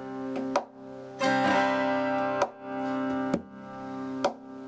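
Acoustic guitar strumming chords, struck about once a second with each chord ringing on between strokes.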